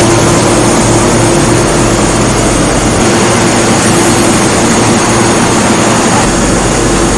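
LD 3015F fibre laser cutting machine running: a loud, steady hiss and rush with a constant hum under it.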